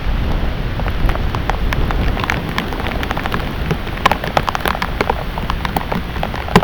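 Heavy rain falling, with many drops striking close by as sharp ticks over a steady hiss and a low rumble underneath.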